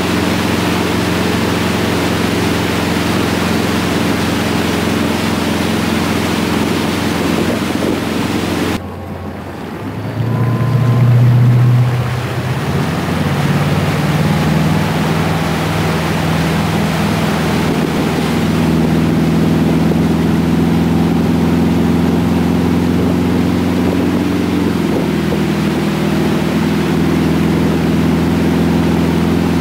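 Motorboat engine running steadily as it tows a wakeboarder, a drone under the rush of water and wind on the microphone. About nine seconds in the sound drops suddenly, then a louder, deeper engine note swells for a couple of seconds before the steady drone returns.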